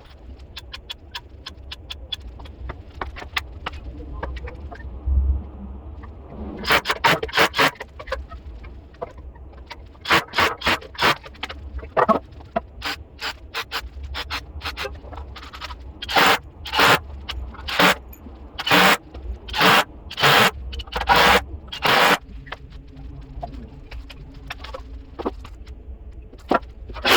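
Repeated scraping strokes of a hand tool working wood, in irregular runs: a quick cluster of strokes, then a steadier series at about one stroke a second.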